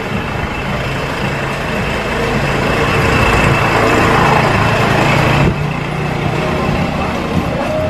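A motorbike engine running close by, growing louder about two seconds in and cutting off suddenly about five and a half seconds in.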